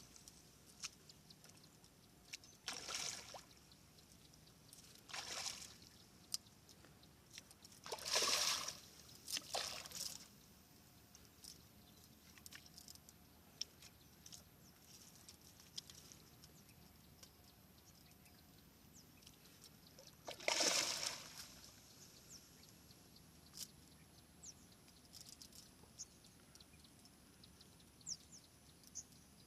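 Faint water sloshing and splashing in short swishes a few seconds apart, the longest about two-thirds of the way in, with small scattered clicks in between.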